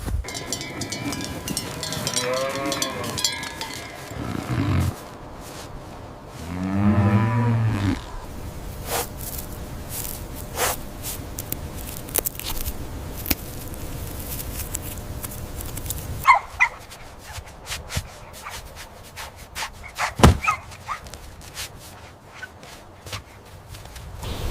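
Animal calls: two drawn-out calls a few seconds apart, each bending in pitch, followed by scattered clicks and knocks.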